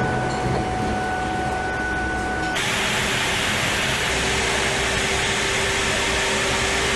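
Steady machinery hum on a factory assembly line, with two faint steady tones. About two and a half seconds in, a louder steady hiss starts abruptly, with a low steady tone under it.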